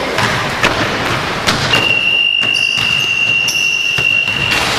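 Indoor basketball game: echoing court noise with thuds of the ball and sneakers, and a single steady high-pitched tone held for about three seconds, starting about two seconds in.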